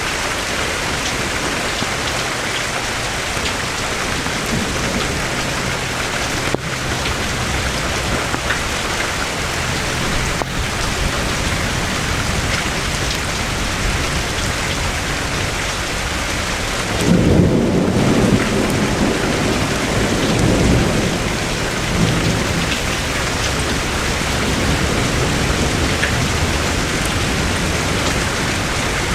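Steady rain falling, with a low rumble of thunder breaking in a little past halfway and rolling on for several seconds.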